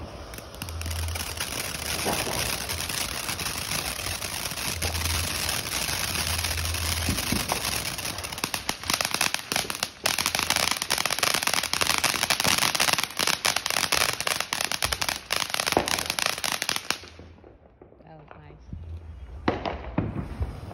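Ground fountain firework spraying sparks with a steady hiss, thick with crackling pops through its second half. It burns out and cuts off suddenly a few seconds before the end.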